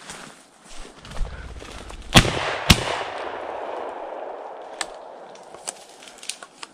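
Two shotgun shots about half a second apart, about two seconds in, each followed by a long rolling echo that fades over the next few seconds: shots fired at a flushed ruffed grouse.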